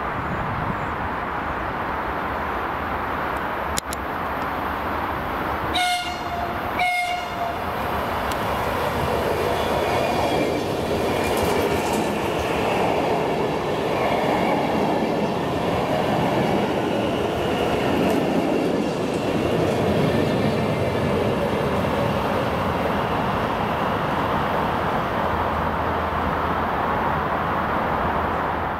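Stadler KISS ЭШ2 double-deck electric multiple unit sounding two short horn blasts about a second apart, then passing close by with steady wheel-on-rail noise as its cars go past.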